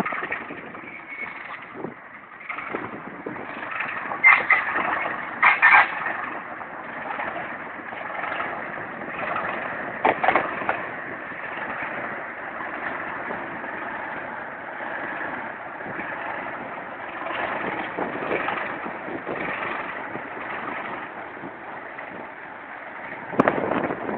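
Diesel-hauled charter train, headed by two Class 37 locomotives, rolling past with a steady rumble of wheels on rail, broken by louder clatters about four to six seconds in and again near ten seconds.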